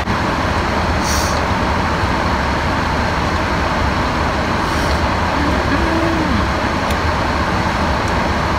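Car air-conditioning fan blowing steadily, a dense even hiss, with the idling engine's low hum beneath it.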